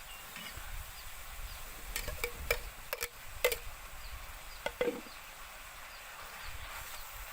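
Scattered sharp knocks and clicks from food preparation, about eight irregular strikes between two and five seconds in, a few with a short ring.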